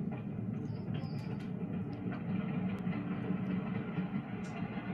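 Wooden roller coaster train running along its track with a steady low rumble, played from a ride-along video through TV speakers.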